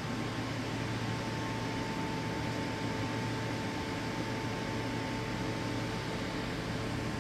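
Heaters running, a steady rushing noise with a constant hum, keeping the church body warm.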